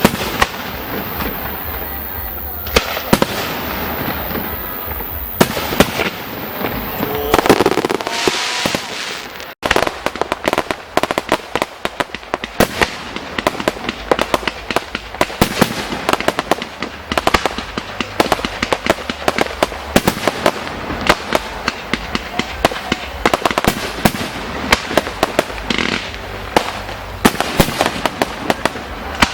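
Fireworks display heard close up: scattered loud bangs of shells bursting for the first ten seconds or so, then after a brief break, a dense, continuous crackle of many small rapid reports.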